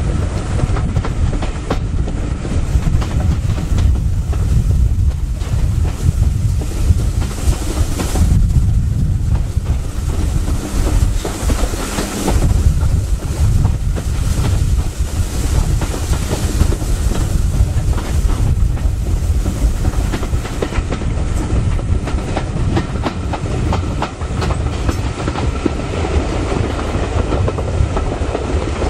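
BR Mk1 coach running at speed, its wheels clicking over rail joints over a steady rumble and rush of running noise, with wind buffeting the microphone held out of an open window.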